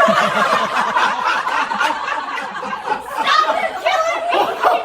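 Several people laughing and chuckling together, a dense, continuous burst of overlapping laughter.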